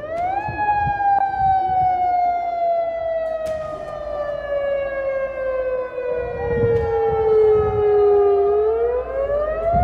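Outdoor tsunami warning siren wailing. Its pitch climbs quickly in the first half second, slides slowly down for about eight seconds, then climbs again near the end.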